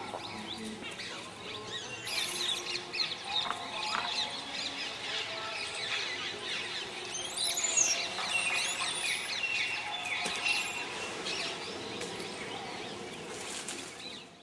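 Birds chirping and calling, many short chirps and quick whistled sweeps, with one higher arcing call a little past the middle.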